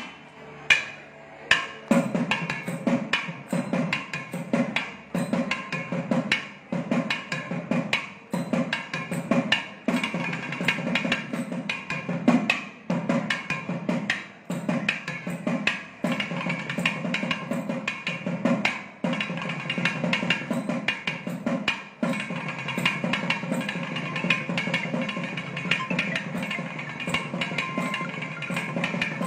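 Thavil drums in a thani avarthanam solo: fast, dense strokes on the heads with a stick and thimble-capped fingers, with sharp cracks and a deep ringing bass. Louder accented strokes stand out every second or two.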